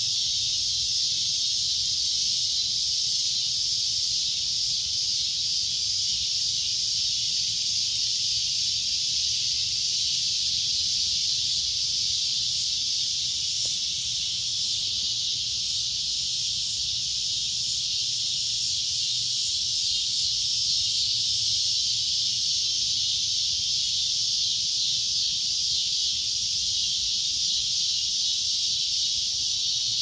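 Cicadas droning: a loud, shrill, steady buzz that holds without a break.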